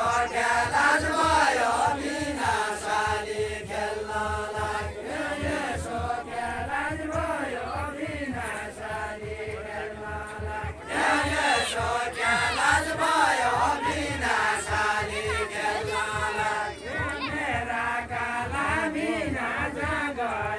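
A group of men singing a deuda, the Far-Western Nepali folk song, together in a chant-like melody of long repeated phrases. The singing swells louder near the start and again about halfway through.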